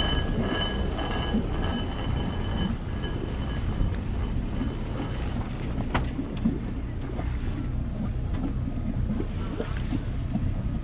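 Wind buffeting the microphone and water rushing past a sailing yacht's hull as it sails. A steady high whine runs over it and stops about six seconds in, followed by a single sharp click.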